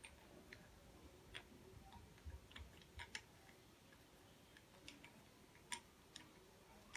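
Faint, irregular clicks and light taps from hands handling and fitting parts onto a new electric drill, with the sharpest click near the end.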